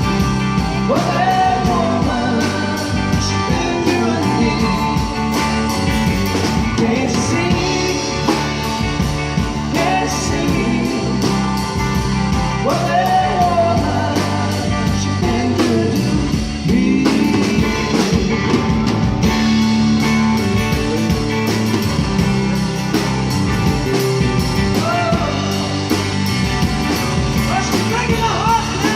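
Live band playing a rock and blues song, with a singer over guitar, bass and a steady drum beat.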